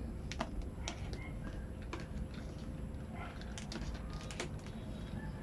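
Scattered light clicks and taps of wires and alligator clips being handled against a plastic tub, with a cluster of quick clicks near the end, over a steady low hum.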